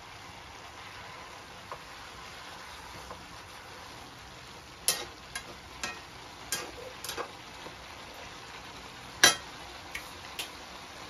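Bean sprouts, cabbage and carrots sizzling steadily in a nonstick wok. From about halfway, a slotted spatula tosses them and knocks and scrapes against the pan several times, the loudest knock near the end.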